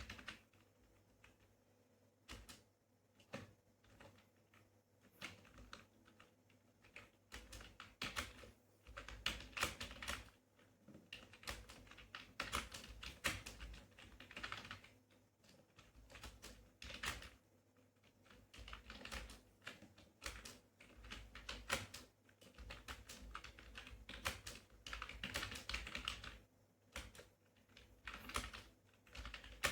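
Computer keyboard being typed on at a steady speed-test pace, rapid key clicks coming in runs of a few seconds with brief pauses between them.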